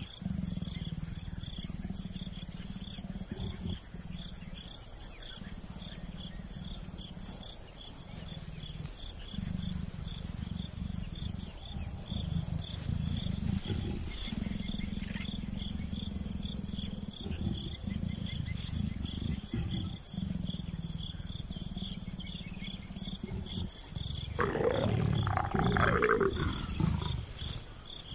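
A mating pair of African leopards growling low and rough in repeated spells. Near the end comes a louder snarling call that rises and falls.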